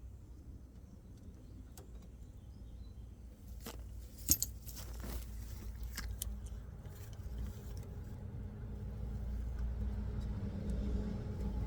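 Metal tools clinking, a handful of sharp clicks about four to six seconds in, the loudest near four seconds, as a socket is handled for the fittings. Under it runs a low rumble that grows louder toward the end.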